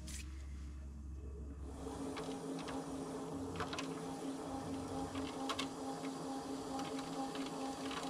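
Electric pottery wheel running with a steady motor whine that sets in about two seconds in, while a metal trimming tool scrapes clay from a semi-porcelain teabowl, with scattered scratchy clicks.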